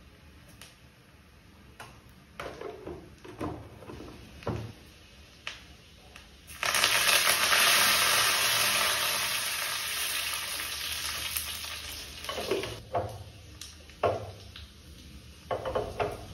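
Spices dropped into a small tempering pan of hot fat start to sizzle suddenly about six and a half seconds in, a loud hiss that slowly fades over several seconds. Light clinks and knocks of a spoon and spice box come before and after it.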